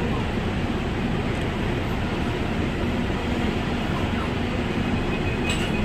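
Gwangju Metro subway train running, a steady rumble of wheels on track with a faint hum, heard from inside the car. A thin high whine appears near the end.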